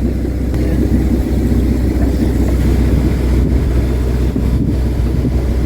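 Sailboat's recently rebuilt inboard engine running steadily under way in calm water, a constant low drone.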